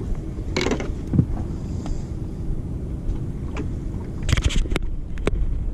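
Steady low rumble of a fishing boat on the water, with scattered sharp knocks and clicks on the boat, a quick cluster of them about four and a half seconds in.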